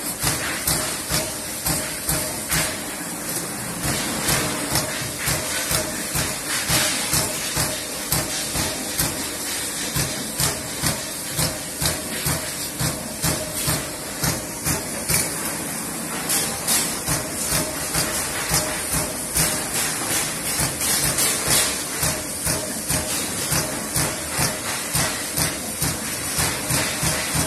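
Trumpf Trumatic 500 CNC punch press punching sheet metal: a steady run of sharp punch strokes, about two a second, over a steady hiss from the machine.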